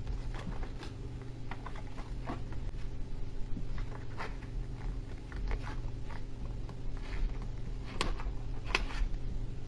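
A sheet of paper crinkling and rustling in the hands as it is folded and creased into a paper airplane, in scattered short crackles, the two loudest near the end, over a steady low hum.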